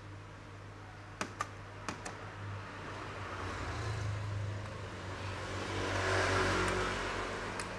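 Four sharp plastic clicks in the first two seconds from handling laptop casing and parts. Then a motor vehicle passes outside: its sound builds, peaks about six seconds in and fades, over a steady low hum.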